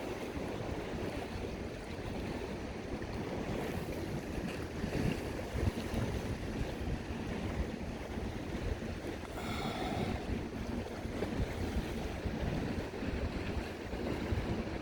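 Lake Michigan waves washing onto the beach, a steady rushing wash with wind gusting against the microphone.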